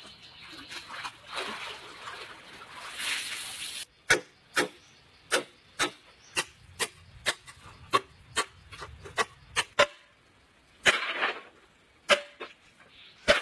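Water splashing in a small pool, then about a dozen sharp knocks, roughly two a second, of a blade chopping into a green bamboo pole. Near the end, a couple of short clatters of split bamboo strips being handled.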